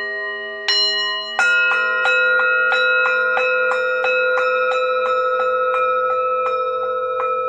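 Singing bowls ringing, several tones sounding together: two strikes a little under a second apart, then a quicker, even series of strokes, about three a second, that keeps the tones ringing.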